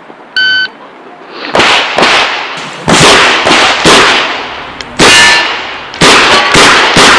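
A shot timer's short electronic beep about half a second in, then a string of revolver shots, about eight, fired at an uneven pace, from a Chiappa Rhino revolver.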